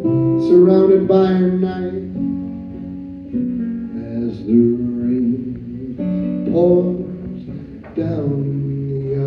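A man sings a folk song to his own strummed acoustic guitar, amplified through a PA in a small room.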